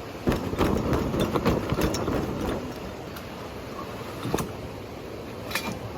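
Wet camping fabric being shaken out, flapping in a quick run of snaps for the first two seconds or so. Two single snaps follow later.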